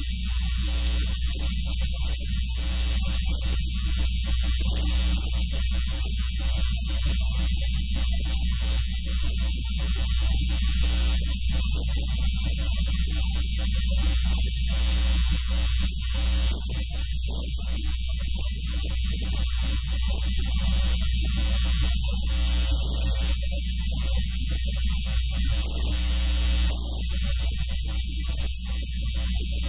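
Loud, steady electrical mains hum and buzz with hiss, with an uneven fluttering in the middle range.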